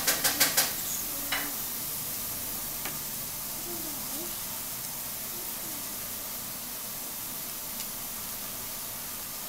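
A thin sheet of paper crinkling as it is handled: a quick run of five or six sharp crackles at the start and another about a second in, then a few faint ticks over a steady hiss.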